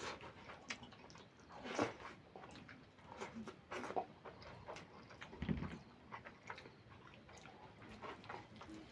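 A person chewing and eating curry close to the microphone: irregular wet mouth clicks and smacks, with a couple of louder soft mouthfuls.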